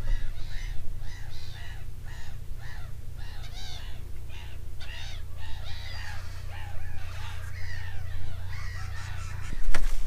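Gulls calling over open water, a long run of repeated calls at about two or three a second, over a steady low rumble.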